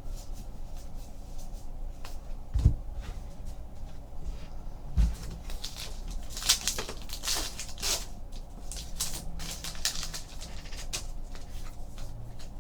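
Baseball trading cards being handled and flipped through: a string of light papery flicks and slides, with two dull thumps about two and a half and five seconds in.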